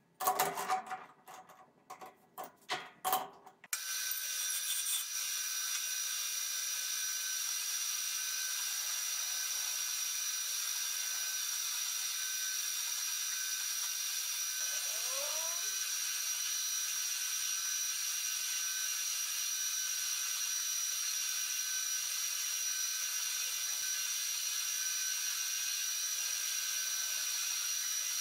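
A few clicks and knocks over the first few seconds, then a metal lathe turning a steel shaft runs steadily, the cutting tool hissing as it peels off chips, with a thin high whine over it.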